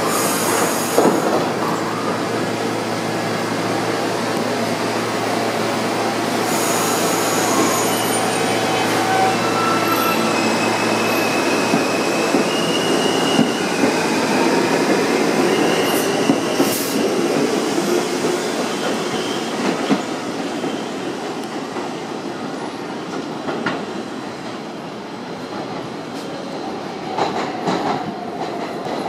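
New York subway trains, an R68 B express and an R160 Q local, pulling out together on adjacent tracks: a steady rumble of wheels and motors, with thin high wheel squeals in the middle that ease off as they leave. Near the end, rail-joint clacks from another train approaching.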